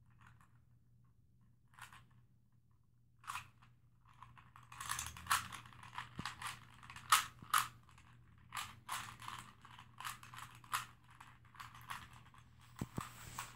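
Plastic 3x3 Rubik's cube being turned by hand: a few separate clicks in the first few seconds, then a fast, dense run of clicking layer turns from about four seconds in.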